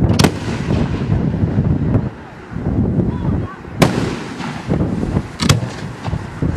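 Fireworks display: aerial shells bursting with sharp bangs, three standing out (near the start, just before four seconds in, and about a second and a half later), over a low rumble and crackle of other bursts and their echoes.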